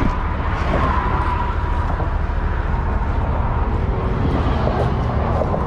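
Steady low rumble of vehicle noise, even throughout, with a faint thin whine near the start.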